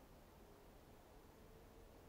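Near silence: faint steady background hiss.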